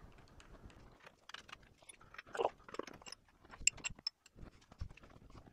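Scattered light clicks and small knocks of metal workpieces being handled and set down on a bench, with a quick run of sharp ticks a little past the middle.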